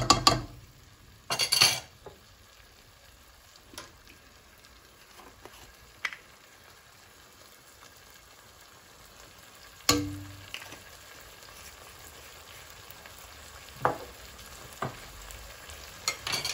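Cubed onion and capsicum frying in oil in a pot, a quiet, steady sizzle. A spatula scrapes through the vegetables at the start and again about a second and a half in. Later come scattered light clicks and one louder knock about ten seconds in from a metal spoon and a pepper jar at the pot.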